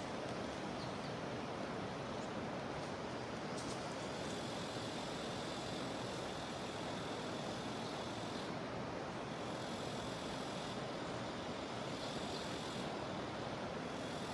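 Steady rushing of a jungle river, with cicadas making a high, thin buzz over it that fades out about two-thirds of the way through.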